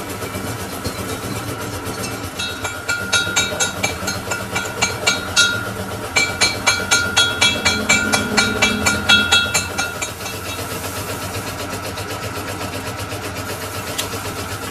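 Lathe running steadily with a held whine. For several seconds in the middle, metal clinks and rings about three times a second, then the clinking stops and the steady running carries on.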